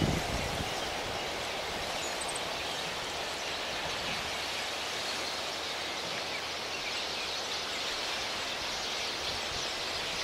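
Steady outdoor seaside ambience: an even hiss of gentle surf and breeze. A brief high bird chirp comes about two seconds in.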